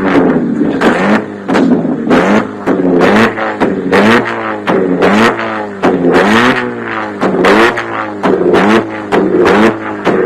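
Modified car engine revved in quick, repeated throttle blips, each rising in pitch, with sharp exhaust bangs about two to three times a second. The bangs are the exhaust flamethrower kit firing.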